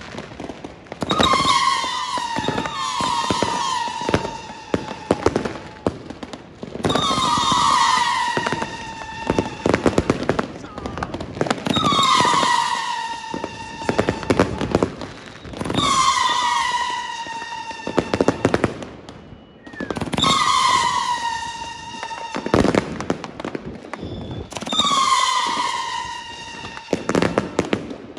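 Kingsmen 'Renaissance' 108-shot fireworks cake firing: a quick run of bangs and crackles, with a shrill whistle that falls in pitch coming back about every four seconds.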